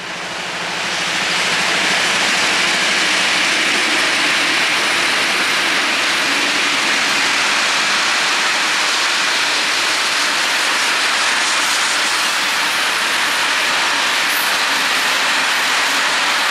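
Diesel-hauled freight train of loaded wagons passing close by. The sound builds over the first second or two as the locomotive draws near, then holds as a steady rush of wheels rolling on the rails while the wagons go by.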